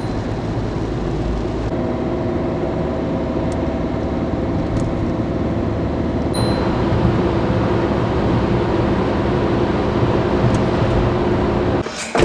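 Steady road and engine noise inside a moving car's cabin at highway speed, with a faint low hum. It shifts slightly a couple of times and breaks off just before the end.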